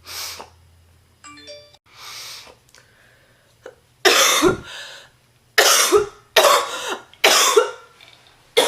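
A woman's deep, chesty smoker's cough. Heavy, laboured breaths come first, then from about four seconds in a fit of about five hard coughs, roughly one a second. It is the cough of a heavy smoker who has fallen ill.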